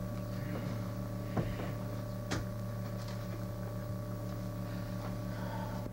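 Steady low electrical hum on an old recording, with faint rustling and two short knocks, about a second and a half in and again a second later. The hum cuts off suddenly at the end.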